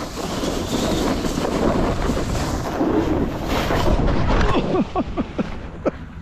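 Wind rushing over the microphone and snow scraping under the rider while descending a groomed ski slope, then a wipeout into the snow about four seconds in. A few short vocal sounds that fall in pitch follow as the rider lies in the snow.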